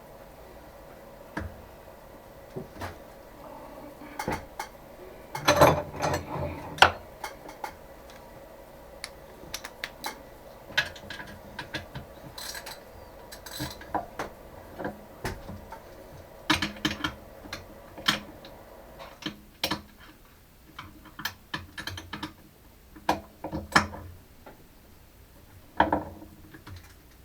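Hand tools clicking and clinking on metal at irregular intervals while a hole in a steel block is hand tapped with a tap and tap wrench, with a busier cluster of knocks about six seconds in.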